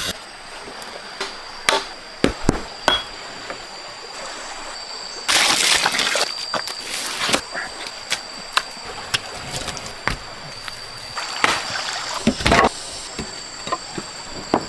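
Water splashing and sloshing, with scattered sharp clicks and knocks and two louder splashy bursts about five and seven seconds in.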